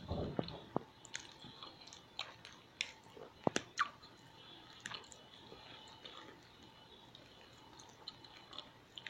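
A person chewing food close to the microphone, with wet mouth clicks and smacks scattered throughout. A low, dull thump comes right at the start.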